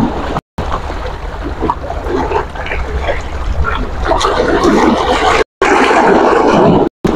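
Choppy sea waves lapping and splashing, with strong wind buffeting the microphone as a steady low rumble. The audio cuts out briefly twice.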